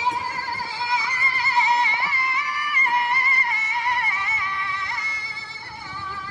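Background music carried by a high, wavering, ornamented melody line.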